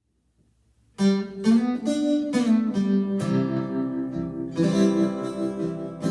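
Acoustic guitar intro, strummed and picked chords ringing, starting about a second in after near silence.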